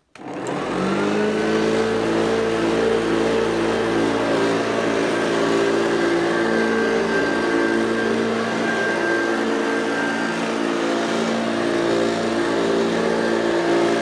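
Hoover Junior U1104 upright vacuum cleaner switched on, its motor spinning up with a rising whine over about the first second, then running steadily and loudly.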